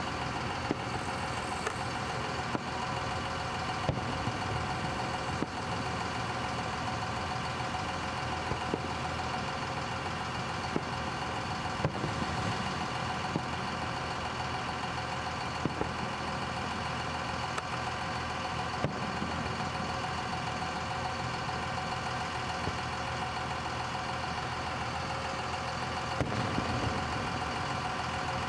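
A steady idling engine drone, with faint sharp thumps of distant fireworks every few seconds.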